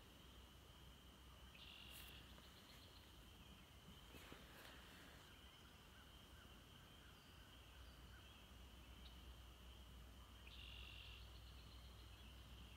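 Near silence: faint outdoor ambience with a thin, steady high-pitched tone, briefly louder twice, and a couple of faint clicks.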